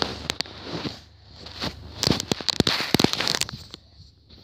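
Crackling, rubbing and knocking of handling noise on a phone microphone, as clothing and hands brush and bump against it during a scramble. The denser rustling comes in the middle.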